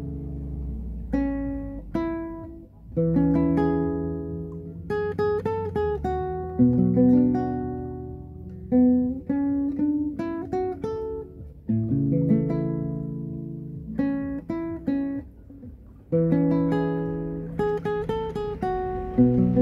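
Acoustic guitar played fingerstyle: plucked chords and single notes that ring and fade, in repeating phrases of a slow, gentle tune.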